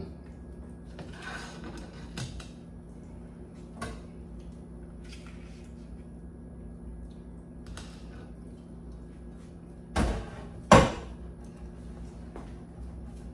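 Kitchen handling noises: scattered light clicks and knocks, then two sharp knocks close together about ten seconds in, over a steady low hum.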